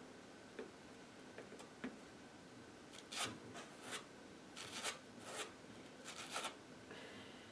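Sleeved trading cards being handled and slid on a playmat-covered table: about five short, soft rustling scrapes in the middle, over faint room tone.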